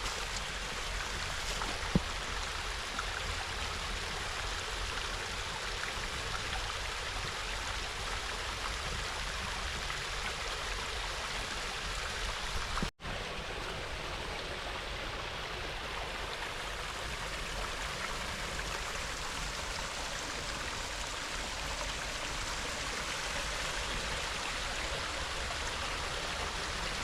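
Creek water rushing steadily over a small rocky cascade. Partway through, the sound cuts out for an instant and then resumes.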